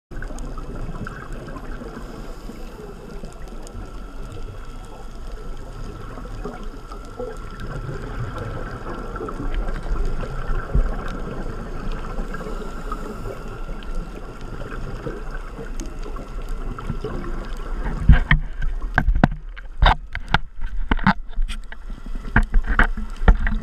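Underwater sound picked up through a camera housing: a steady dull wash of water. From about 18 seconds in, a scuba diver's regulator breathing is heard, with loud, irregular bursts of exhaled bubbles.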